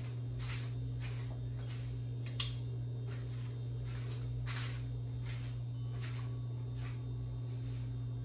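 Hunter Castleton ceiling fan motor, which has a bad capacitor, running with a steady low electrical hum. Faint short high-pitched sounds come and go every second or so on top of it.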